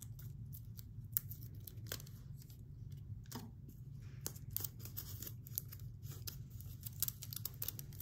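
Glue dots being peeled off their backing strip and pressed onto cardboard tubes: scattered soft clicks and crinkles over a faint steady low hum.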